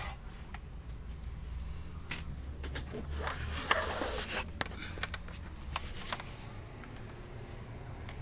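Handling noises from hands working with cables, plastic and paper: a run of clicks and knocks with a denser rustling stretch in the middle, over a steady low hum.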